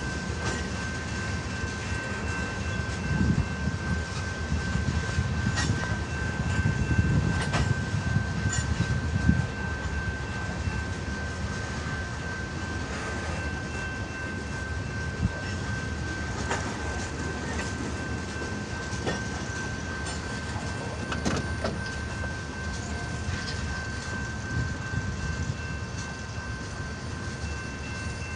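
CN freight train's cars rolling past: a low rumble, louder for the first ten seconds or so, with scattered wheel clicks over the rail joints and a thin, steady high-pitched wheel squeal.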